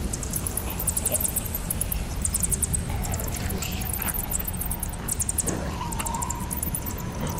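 Outdoor ambience: a steady low rumble under clusters of rapid, very high-pitched chirps, with a thin steady tone joining in near the end.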